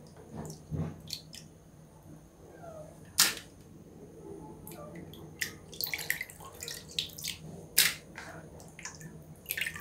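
Water splashing and dripping as hands rinse milkfish steaks in a plastic tub of water. It comes as scattered short splashes, the sharpest about three seconds in and again near the end, over a low steady hum.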